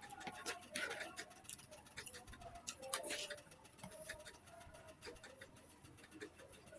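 Close-miked eating: wet chewing, lip smacks and small clicks, with a denser crackly burst about a second in and another about three seconds in.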